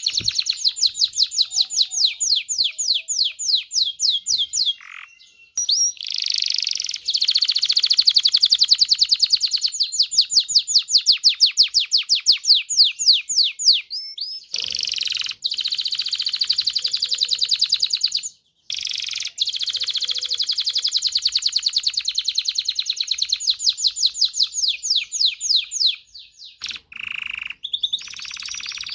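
Domestic canary singing: long rolling trills of rapid repeated notes, each phrase running several seconds before a brief pause and a change to a new trill.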